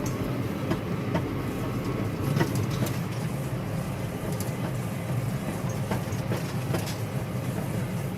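Tractor running while pulling a round baler through a hay field: a steady low engine drone with scattered clicks and rattles from the machinery.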